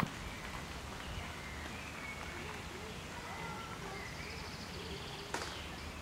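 Quiet outdoor park ambience: a steady faint background hiss with a few faint, brief bird calls, and one sharp click near the end.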